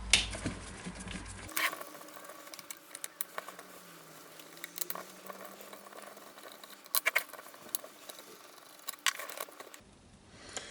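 Scattered small clicks and taps of screws, a screwdriver and plastic housing parts being handled while a cordless circular saw is taken apart.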